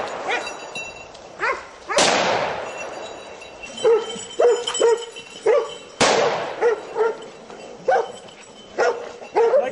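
Two gunshots about four seconds apart, each with a long echoing tail, fired at a wild boar. Hunting dogs bark repeatedly and excitedly in short yelps from about four seconds in.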